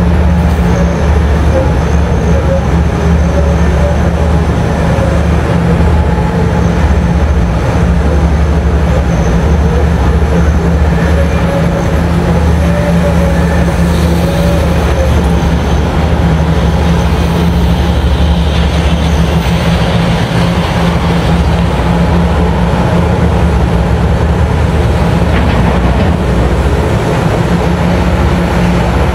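Komatsu PC5500 mining excavator's diesel engines running steadily under load as it digs and loads a haul truck, a loud, even low hum with mechanical noise over it.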